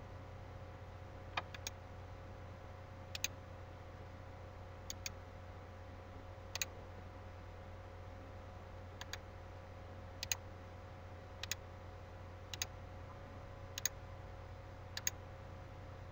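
Computer mouse buttons clicking about ten times at irregular intervals, many as quick press-and-release pairs, over a steady low electrical hum.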